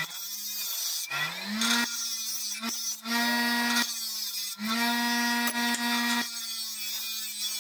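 Bench grinder running with a steady hum while a piece of steel flat bar is pressed against the wheel to grind a bevel on its edge. The grinding hiss comes in several passes with brief breaks between them.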